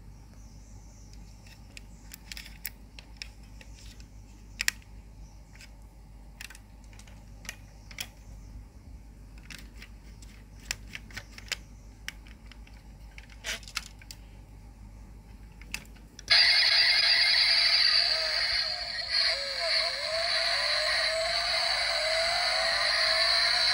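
Small sharp clicks of a die-cast model truck's opening parts being worked by hand: tailgate, doors and bonnet. About sixteen seconds in, a much louder steady electronic sound with a wobbling pitch starts suddenly.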